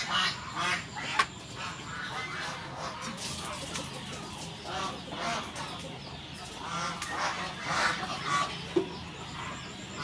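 Geese honking repeatedly in the background, a run of short calls. There is one sharp click about a second in.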